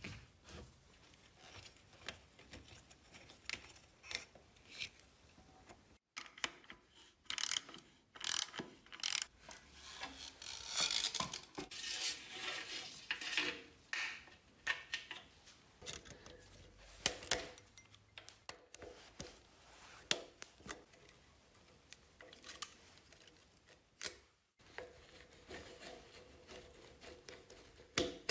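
Hand work on metal parts in a workshop: irregular scraping and rubbing strokes mixed with scattered clicks and knocks, busiest about ten to fourteen seconds in.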